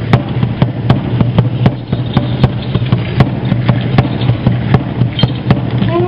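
Aztec dance drum beaten in a fast, steady rhythm of about four beats a second. Right at the end a conch shell horn starts to sound a long held note.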